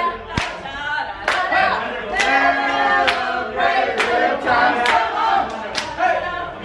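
A group of people singing together, with hand claps about once a second.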